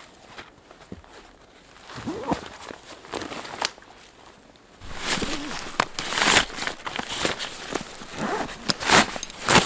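Footsteps crunching through snow: sparse at first, then heavier and steady from about halfway through.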